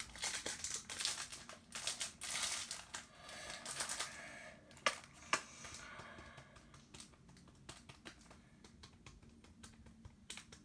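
Foil booster-pack wrapper of Pokémon cards crinkling as it is torn open, then two sharp clicks about five seconds in and a run of light ticks as the cards are handled and flicked through.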